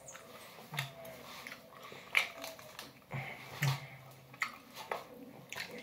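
A person chewing gummy candies: wet mouth clicks and smacks with a few short low grunts, while the plastic candy bag crinkles in his hands.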